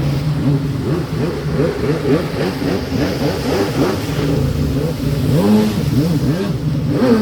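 Jet-ski engines revving up and down over and over, their pitch sweeping rapidly as the riders throttle through tricks, over a steady engine hum.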